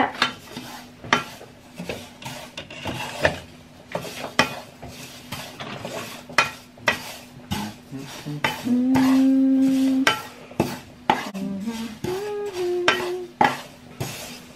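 Dishes and cutlery clinking and knocking as they are handled and dried, with a steady low hum underneath. About nine seconds in, a held note sounds for about a second, and a shorter one follows near the end.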